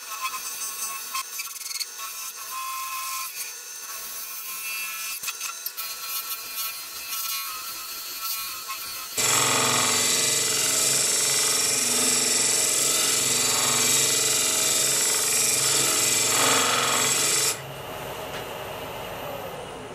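Wood lathe spinning a snakewood bowl while a hand-held turning tool cuts into it, scraping with many small ticks. About nine seconds in it changes abruptly to much louder, harsher cutting over a low motor hum, which cuts off suddenly about eight seconds later.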